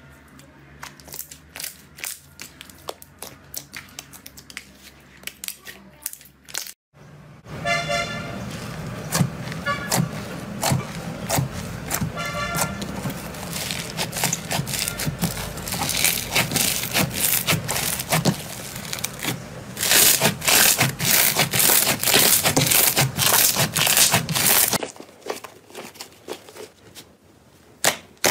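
Slime squished and stretched by hand, giving sticky clicks and small pops. After a cut, foam-bead slime (floam) is pressed and kneaded, a dense, louder crackling. Sparse squishy clicks return near the end.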